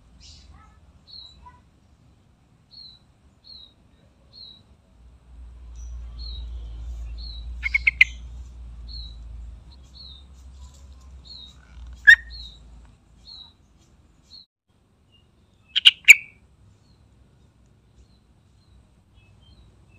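Yellow-vented bulbul (trucukan) calling: soft high chirps about once a second, broken by three loud, quick bursts of notes near the middle and late on. A low rumble runs underneath through the middle.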